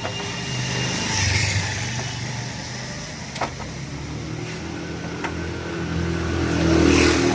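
Motor vehicle engine noise, swelling about a second in and again near the end, with a few short sharp clicks.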